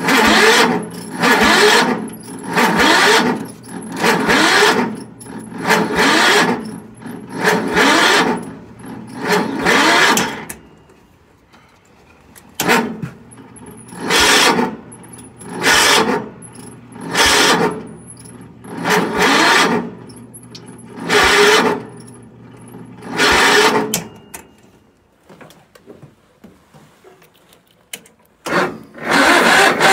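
Cub Cadet garden tractor engine running unevenly, surging up in repeated bursts about every second and a half, with a short lull about a third of the way in. It goes quiet for a few seconds near the end, then starts and runs steadily and loudly.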